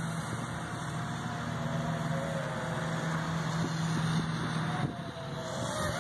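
Small quadcopter's electric motors and propellers buzzing, the pitch wavering up and down as the throttle changes, over a steady lower hum that drops out about five seconds in. Wind noise runs underneath.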